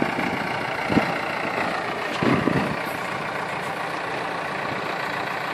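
Backhoe loader's diesel engine running steadily, with a sharp knock about a second in and a short patch of louder knocks a little after two seconds.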